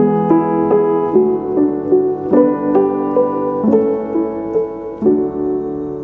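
Instrumental background music: a calm melody of separate struck notes, about two or three a second, with held notes ringing underneath.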